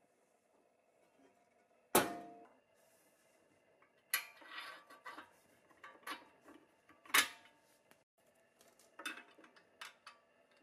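Pressed-steel toy trailer parts clicking and clinking as they are handled and fitted together: a sharp metallic knock with a short ring about two seconds in, then several lighter clinks and taps.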